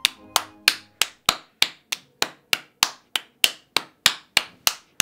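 A girl clapping her hands in a steady rhythm, about three claps a second.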